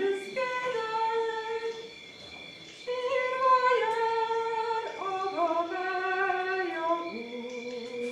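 A woman humming a tune unaccompanied: sustained notes that step up and down in pitch, with a short break about two seconds in.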